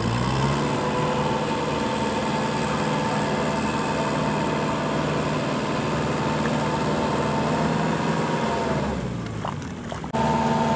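Kubota L5018 tractor's diesel engine running steadily under load while its rear rotary tiller churns a flooded paddy, the pitch rising briefly at the start and then holding even. It fades slightly near the end, then cuts abruptly to another tractor engine running at a different, steady pitch.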